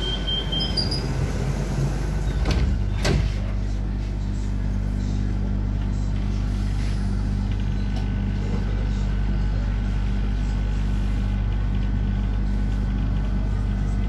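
Rome Metro line B train at a station: a door-warning beep ends just under a second in, the sliding doors knock shut twice about two and a half to three seconds in, then the train's steady hum and rumble as it pulls out.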